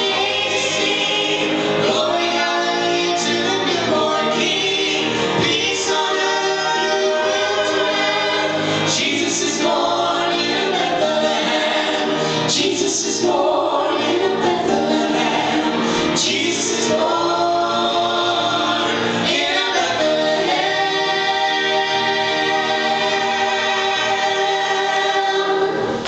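A family group of men's, women's and children's voices singing a southern gospel Christmas song in harmony, ending on a long held chord.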